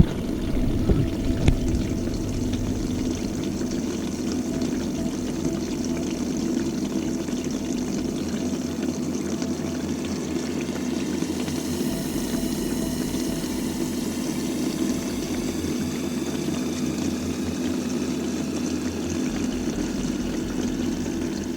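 Liquid pouring and splashing steadily over the even hum of a small electric pump.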